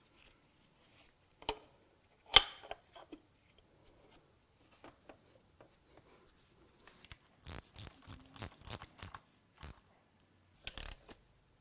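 Hands working with parts and tools: scattered light clicks and taps, one sharp knock about two and a half seconds in, and a denser run of clattering and rustling from about seven to nine and a half seconds.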